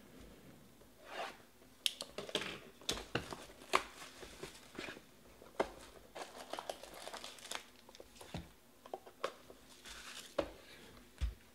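Clear plastic shrink-wrap crinkling and tearing as a cardboard trading-card box is unwrapped and opened. It comes as irregular crackles and sharp ticks, with light cardboard taps as the box and its foil packs are handled.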